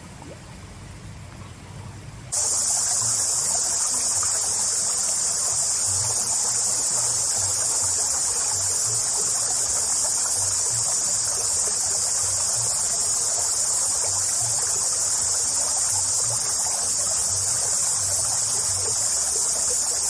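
Loud, steady, high-pitched insect chorus: a continuous shrill drone that starts abruptly about two seconds in, over a softer rushing background.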